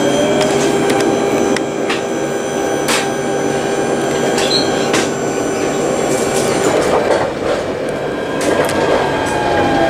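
Alstom Citadis tram running on its line, heard from inside the driver's cab: a steady electric drive whine over wheel-and-rail rumble, with a few sharp clicks and a rougher, noisier stretch about seven seconds in.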